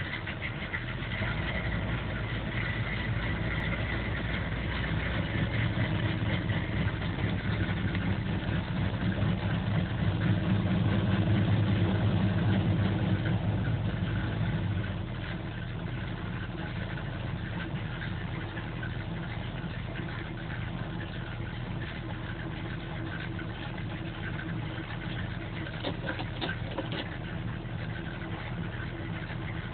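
Classic pickup truck engine idling steadily, heard from inside the cab. It runs a little louder for several seconds, then drops back to a steady idle about halfway through.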